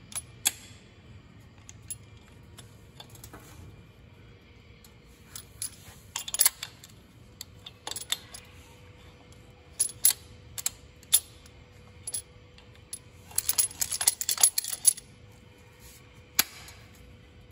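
Pliers clicking and tapping on a steel cotter pin and lift-link pin as the cotter pin is worked into place, while locking pliers hold the pin. Scattered single metallic clicks, then a quick flurry of them about three-quarters of the way through.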